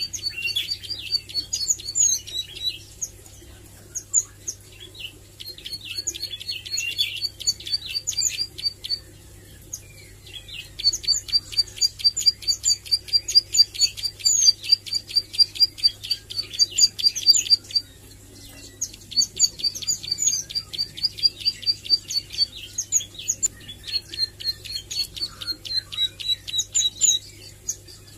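A caged ciblek sawah (a prinia) singing five bouts of fast, repeated high chips, each a few seconds long with short pauses between. This is a young bird practising its song and rapid-fire 'nembak' phrases.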